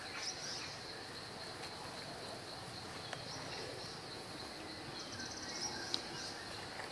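Forest ambience: a steady high insect chirring with a few short bird chirps, and a sharp tick about six seconds in.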